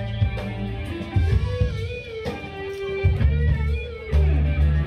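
A live band playing amplified rock music: electric guitar and bass guitar over drums.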